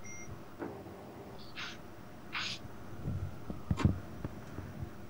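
Faint noise from an open microphone on a video call: a brief high beep at the start, two short breath-like hisses, then a few soft knocks and a click.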